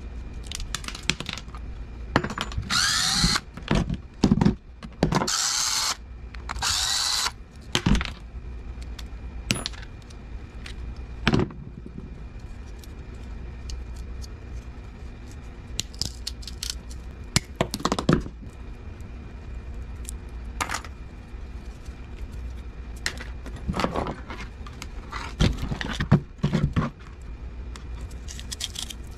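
DeWalt cordless drill running in four short bursts, its pitch rising and falling, during the first seven seconds or so as it drives screws out of a microwave fan housing. After that come scattered clinks and knocks of small metal motor parts being handled and set down on the workbench.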